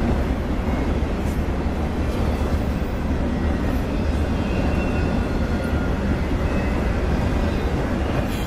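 Enclosed autorack freight cars rolling past on steel wheels: a steady rail rumble.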